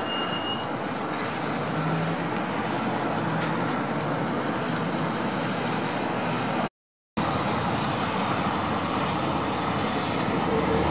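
Steady road traffic noise from vehicles on wet pavement. It cuts out completely for a moment about two-thirds of the way through.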